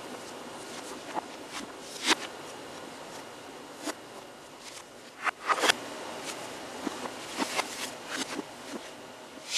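Footsteps and shoe scuffs on a hard floor, with scattered sharp knocks and clicks, the loudest about two seconds in and a cluster around five and a half seconds, over a steady hiss.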